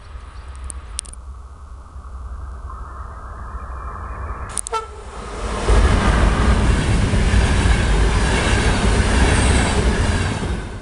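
CFR electric locomotive hauling a passenger train gives a short horn blast about halfway in, then passes close at speed. A loud, steady rush of wheels on rail follows and drops away near the end as the last coach goes by.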